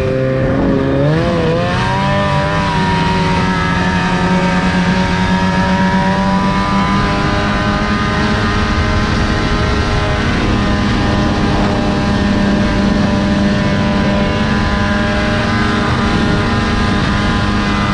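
Snowmobile engine pulling hard as the sled speeds up about a second in, its pitch rising, then holding a steady high note at cruising speed.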